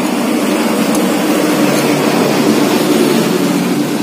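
Steady mechanical drone with a low hum.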